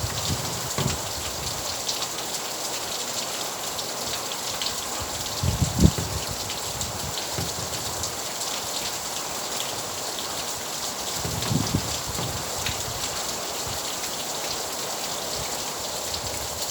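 Steady rain falling and pattering on surfaces, with a couple of short low thuds, the loudest about six seconds in.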